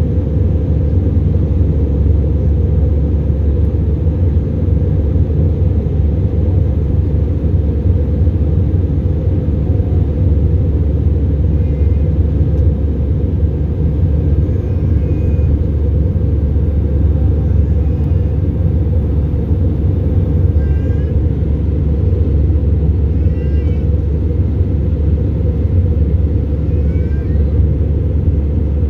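Steady low rumble of engine and airflow noise inside an Airbus A319's passenger cabin in climb. Faint short high-pitched cries come through every few seconds from about the middle on.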